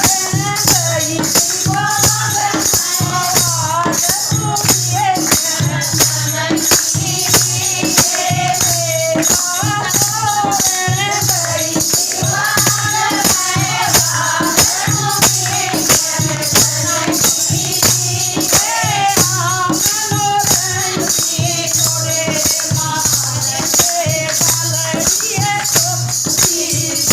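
Hindi devotional bhajan: a voice singing a wavering melody over a steady beat, with rattling, jingling percussion pulsing throughout.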